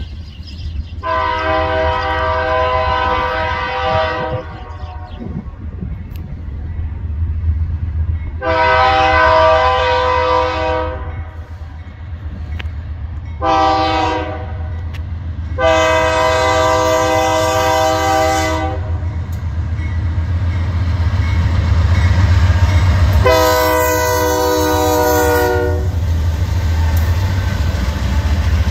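BNSF diesel locomotive's air horn sounding the grade-crossing signal: two long blasts, a short one and a long one, then one more long blast near the end. A low diesel rumble runs underneath and grows louder as the locomotives close in and pass.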